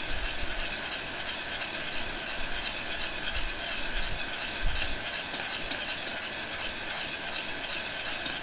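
Heat gun blowing steadily into a metal bowl of coffee beans as they are stirred by hand with a spoon, the beans rattling and the spoon clicking against the bowl a few times. The beans are mid-roast, not yet at first crack.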